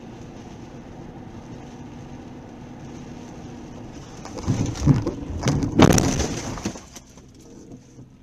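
Steady car interior driving noise, then about halfway through a series of loud crunching impacts with breaking and scattering sounds, loudest near the end, from a collision or debris striking the car.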